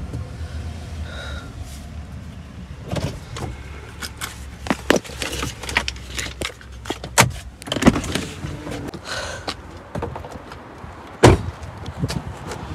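A series of sharp knocks and clicks over a low rumble, with the loudest thump about eleven seconds in.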